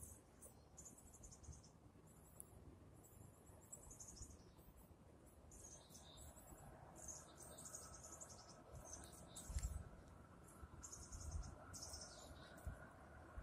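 Faint, high-pitched chirping and trilling of crickets, repeating throughout, with a few low muffled thumps about ten seconds in.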